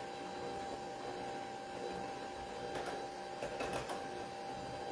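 Electric hand mixer running steadily at one speed, its beaters whirring through a bowl of wet batter.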